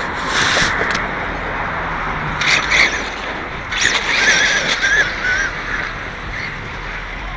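Traxxas E-Revo electric RC truck with a Castle motor on a 6-cell LiPo, driven on pavement. Its tyre and drivetrain noise comes in short bursts, with a wavering high motor whine about four seconds in.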